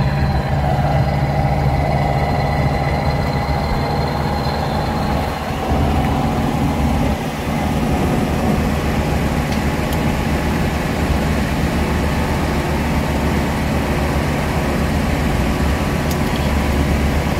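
1968 Pontiac Firebird's power convertible top being raised, its electric-hydraulic pump motor running with a steady hum. The hum dips briefly about six seconds in.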